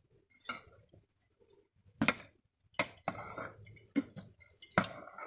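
Metal spoon knocking and scraping against a metal cooking pot while scooping cooked rice: a few sharp clinks about a second apart, with quieter scraping between them.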